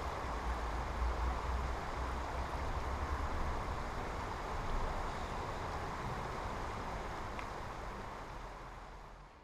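Steady rush of river water running over stones, with wind rumbling on the microphone; it fades out at the very end.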